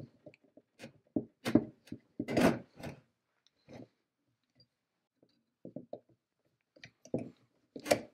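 Scattered clicks, taps and a short scrape from small brass parts and pliers being handled while the spring hub of a 1930s Torit centrifugal dental casting machine is taken apart. The loudest come about one and a half to two and a half seconds in, and another sharp click comes near the end.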